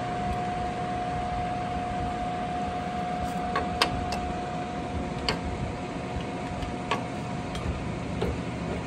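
Steady mechanical hum with a thin steady whine from a TOS SU100 engine lathe running, and about half a dozen sharp metallic clicks in the middle and latter part as the carriage handwheel and apron controls are worked by hand.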